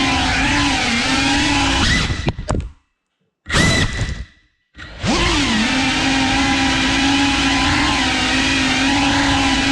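FPV quadcopter's brushless motors and propellers whining steadily, the pitch dipping and rising again with throttle changes. About three seconds in the sound cuts off dead twice, with a short burst of whine between the gaps.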